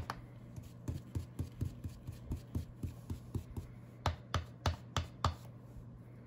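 Foam-padded ink blending tool dabbed repeatedly on a plastic stencil over paper, working ink through it: soft taps about four a second, a few louder ones about four seconds in, stopping shortly before the end.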